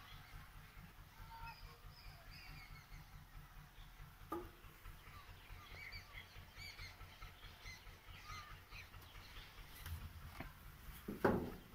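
Birds calling, scattered short chirps. A knock about four seconds in and a louder thump near the end.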